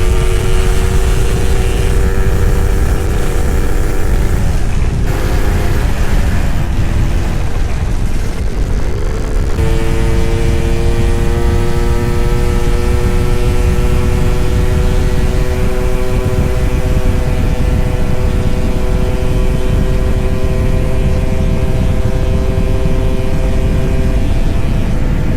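Suzuki Satria 2T 'Lumba' single-cylinder two-stroke motorcycle engine pulling at speed, its pitch climbing slowly. It drops away a few seconds in, then comes back strongly about ten seconds in for a long, steady rise. Heavy wind rumble on the microphone.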